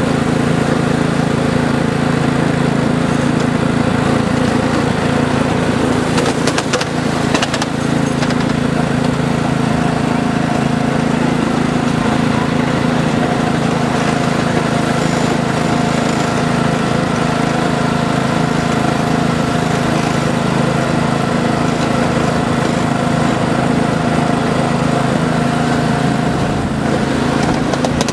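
Miniature railway train running steadily along the track: a constant small-engine drone, with a thin steady whine that comes in about a third of the way through.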